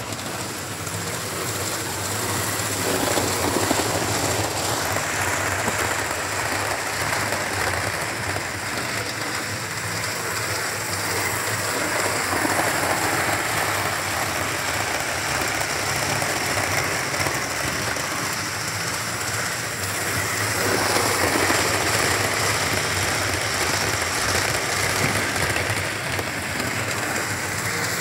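Model railway train, a Class 47 model locomotive hauling a rake of Mk3 coaches, running round the layout. A steady, even running noise of wheels on the track and the locomotive's motor swells a few times as the train comes by.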